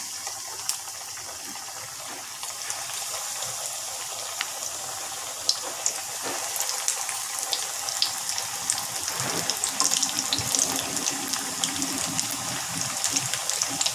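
Semolina-coated vegetable patties deep-frying in hot oil in a wok: a steady sizzle with scattered crackles and pops. It grows louder and crackles more in the second half, as more patties go into the oil.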